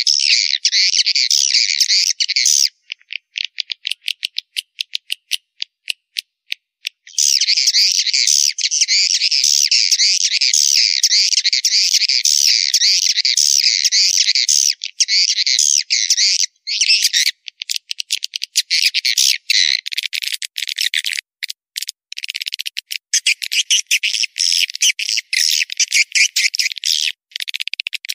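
Swiftlet call recording, the kind played from swiftlet-house speakers to lure swiftlets in: dense, high-pitched twittering chirps. About three seconds in it thins to a few seconds of sparse, separate clicks. The twittering then returns and grows choppy and broken in the second half.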